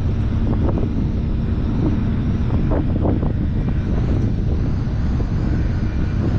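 Strong wind buffeting the microphone: a steady, loud, low rumble, with a few short knocks in it.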